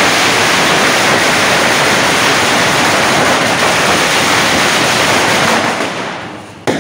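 An Indigo 10000 wala garland of firecrackers bursting in a dense, continuous rattle of bangs that blur together, thinning and fading from about five and a half seconds in as the string burns out, with one last sharp bang near the end.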